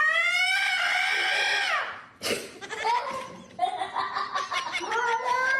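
A cat yowling in long, drawn-out calls: one held for about two seconds that falls away at its end, then after a short break further long, wavering yowls.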